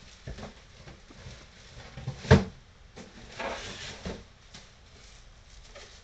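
Plastic-bagged model-plane kit parts being handled and crinkled, with a few knocks of parts set down on the table, the sharpest about two seconds in and a stretch of rustling a second later.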